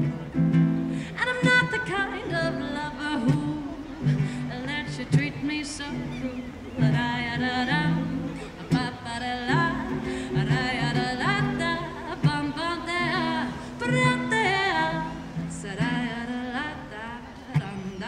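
A woman singing a folk-pop song, accompanied by her own strummed ukulele chords, with vibrato on the held notes.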